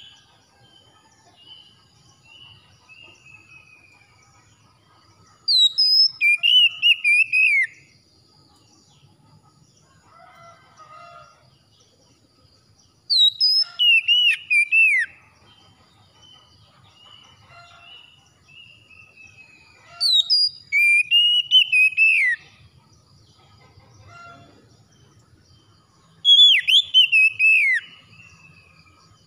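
Oriental magpie-robin (kacer) singing: four short phrases of loud, clear whistled notes that glide up and down, each about two seconds long and coming roughly every seven seconds, with faint softer notes between.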